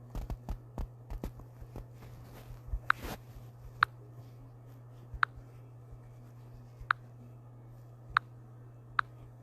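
A flurry of soft knocks in the first two seconds, then six sharp single clicks spaced about a second or a second and a half apart, over a steady low hum.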